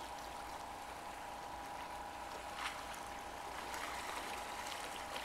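Quiet shoreline background of water washing against rocks, under a faint steady hum, with one light click about two and a half seconds in.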